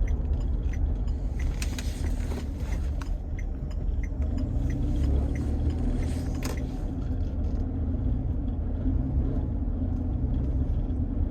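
Vehicle rolling at slow speed with a steady low rumble, and scattered light rattling clicks from underneath, mostly in the first half, which the mechanic takes for a loose heat shield.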